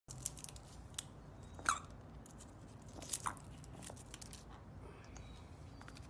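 African grey parrot biting and tearing a dry leaf held in its foot: a run of crisp crunches and crackles, loudest twice, just under two seconds in and just over three seconds in, thinning out over the last second or so.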